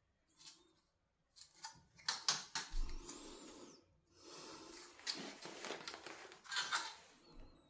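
Intermittent clicks, knocks and rustling of plastic parts being handled, with a few short hissing stretches. This is typical of an air conditioner's panels and parts being put back together after cleaning.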